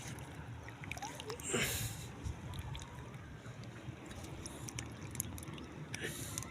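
Water sloshing and trickling, with scattered small clicks and one brief louder rush about one and a half seconds in.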